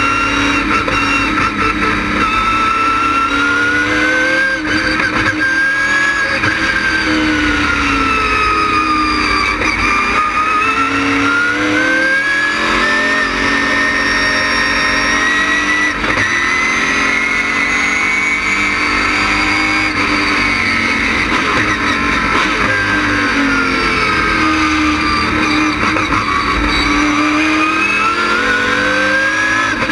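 ASA stock car's LS6 V8 with an ASA race cam, heard on board at speed, its engine note rising and falling smoothly several times as the car accelerates and backs off.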